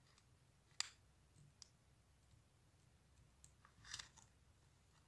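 Near silence with a few faint light clicks of a metal rhinestone chain being handled and pressed into place: one about a second in and a short cluster near four seconds.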